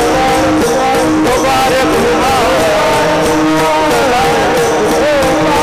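Varkari devotional music: a wavering melody line over a steady beat of pakhwaj drum strokes.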